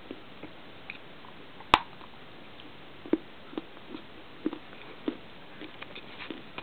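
Dry natural clay being bitten and chewed: a run of irregular crisp crunches, with one sharp, much louder crack about two seconds in.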